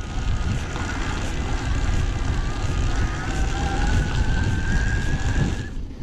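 Electric mountain bike's drive motor whining under load on a steep climb, its pitch rising slowly before it drops out just before the end, over a rough low rumble of wind and riding noise.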